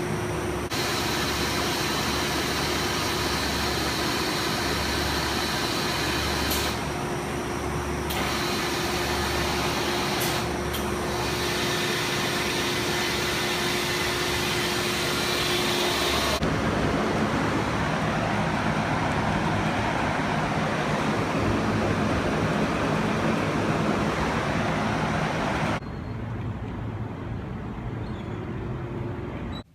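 Steady, loud mechanical running noise from a machine or vehicle, with a steady hum through the first half. It changes abruptly several times, like cuts between recordings, and drops to a quieter noise near the end.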